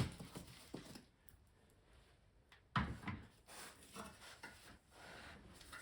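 Motorcycle tire and rim being handled during hand mounting: faint rubbing and a few light clicks, with one sharp knock a little under three seconds in.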